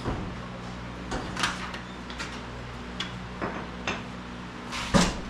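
Scattered clunks and clicks of tools and metal parts being handled, the loudest a clunk near the end, over a steady low hum.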